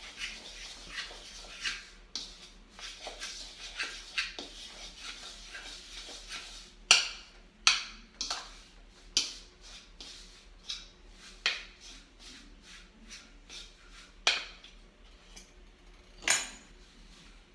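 A fork stirring a soft flour-and-water dough in a plastic mixing bowl, scraping with small clicks. It then turns to a series of sharp taps of the fork against the bowl, about one a second, with a louder clack near the end.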